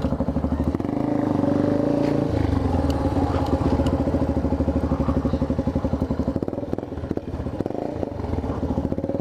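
Motorcycle with a loud aftermarket exhaust running at low revs, a steady, rapid pulsing beat of the engine's firing, as when rolling slowly or idling.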